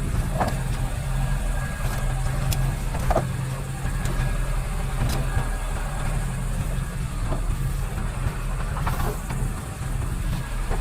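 Motor vehicle engine running with a steady low hum, and a few light knocks or rattles, the loudest about three seconds in.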